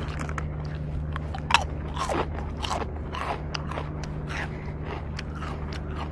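A person chewing and biting crunchy food close to the microphone, with irregular crunches and crackles, the loudest about a second and a half in.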